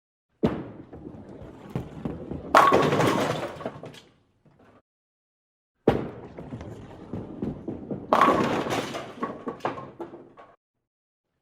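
Bowling ball dropped onto the lane and rolling, then crashing into the pins with a clatter that dies away; this happens twice, the second time about six seconds in.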